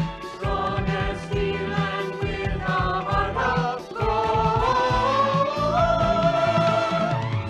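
Closing theme song of a cartoon: music with voices singing held, sliding notes over a steady beat.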